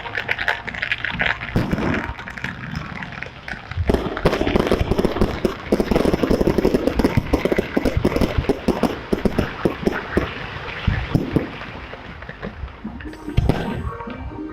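Fireworks crackling in a dense, rapid run of many sharp pops a second, growing louder about four seconds in and thinning out after about ten seconds.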